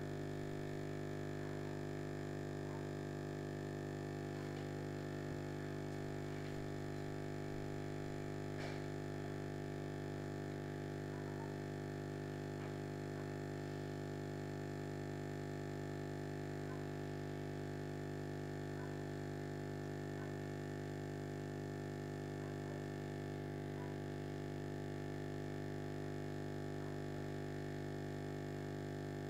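Steady low hum of an aquarium pump running, with a few faint small ticks over it.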